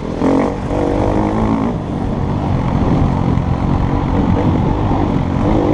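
KTM EXC-F 250's single-cylinder four-stroke engine running hard under load, its revs rising and falling repeatedly as the enduro bike is ridden along a dirt trail, heard on board from the rider's helmet camera.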